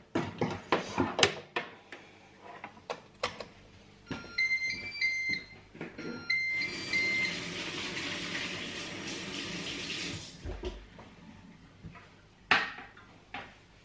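Moulinex Cookeo multicooker switched on, playing its start-up jingle of short stepped electronic beeps twice, about four and six seconds in, after a few knocks and clicks as it is set in place. A steady hiss follows for about four seconds, and a dull thump comes near the end.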